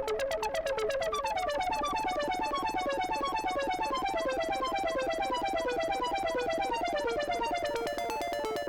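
Eurorack modular synthesizer playing a fast sequenced pattern of short pitched notes, several a second, over a held lower tone, with each note shaped by a Frequency Central CEMvelope ADSR envelope generator. Near the end the notes turn shorter and brighter.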